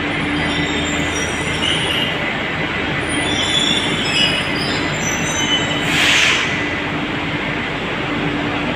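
Delhi Metro train running on the underground station track, a steady rumble with high thin wheel squeals coming and going. A short hiss stands out about six seconds in.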